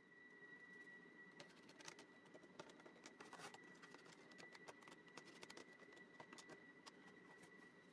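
Near silence: faint, scattered small clicks and ticks over a faint steady high-pitched tone.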